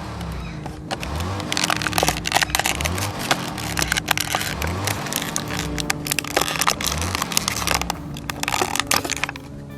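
Plastic blister packaging and cardboard crackling and crinkling as a die-cast toy car is unboxed by hand, a dense run of small cracks that starts about a second and a half in and stops just before the end.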